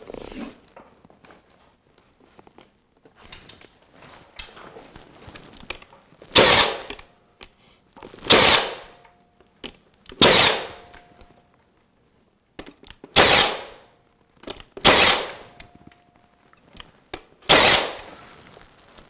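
Nail gun firing six single shots, roughly two seconds apart, driving nails through flexible crown molding to tack its bottom edge to the wall along a pencil line. Quieter rustling of the molding being handled between shots.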